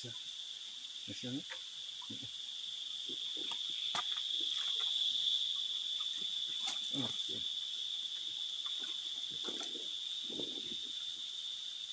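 Steady high-pitched drone of insects, with scattered short knocks and water sounds as a river rock is shifted by hand in shallow water.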